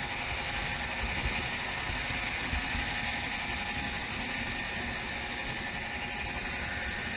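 HO scale model diesel locomotive running along the track toward the microphone: a steady mechanical running noise with a faint hum.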